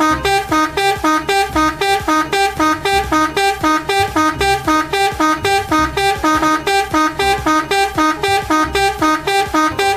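Background music: a bright tune of quick, evenly spaced plucked notes.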